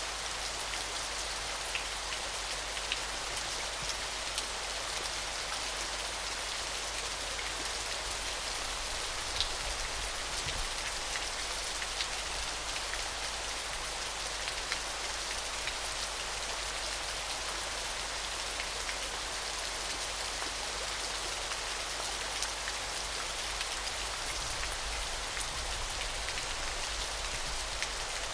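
Small waterfall: water falling and splashing in a steady bright hiss, with scattered small droplet splashes standing out now and then.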